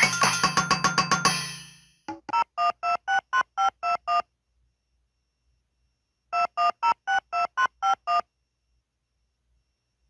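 Phone ringtones: a busy multi-note melody fades out over the first two seconds, then a new ringtone plays, a quick run of about ten short electronic beeps at changing pitches, given twice with a gap of about two seconds between the phrases.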